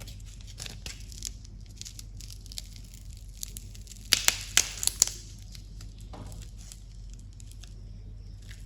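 Candy wrappers crinkling and tearing as candies are opened, with soft scattered crackles and a burst of louder crinkles about four seconds in.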